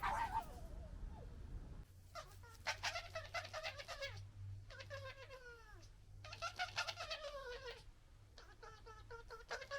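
European red foxes calling at close range: about four bouts of stuttering, pulsed calls, each lasting a second or two, some sliding down in pitch.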